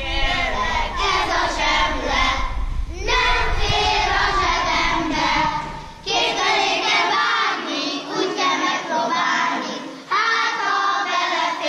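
A group of children singing a song together, sung in phrases with short breaks about 3, 6 and 10 seconds in.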